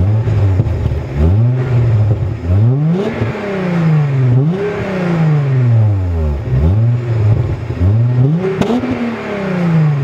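Volkswagen VR6 engine and exhaust revved in a series of blips, about six times. Each rev climbs quickly toward about 5,500 RPM and then falls back.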